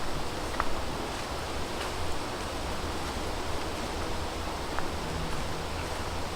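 Steady outdoor noise on a wooded trail: an even rustling hiss over a low rumble, with a few faint clicks.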